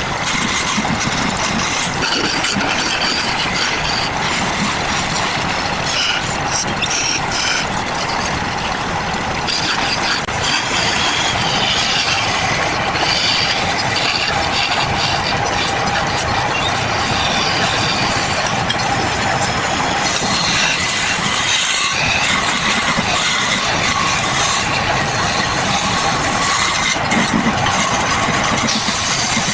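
Woodworking machinery running continuously, a steady mechanical noise with a held whine.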